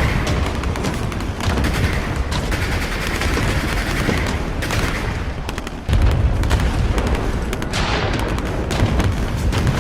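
AI-generated battle sound effect: dense gunfire and machine-gun fire over a low rumble of booms, growing louder suddenly about six seconds in.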